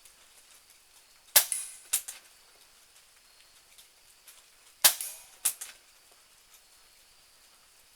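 Benjamin Marauder .22 PCP air pistol fired twice, a few seconds apart. Each shot is a sharp crack followed about half a second later by a quieter click.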